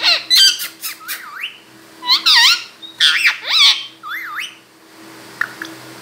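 Indian ringneck parakeet squawking: a run of loud, sharp calls that bend up and down in pitch, thinning out to a few quieter calls in the last couple of seconds.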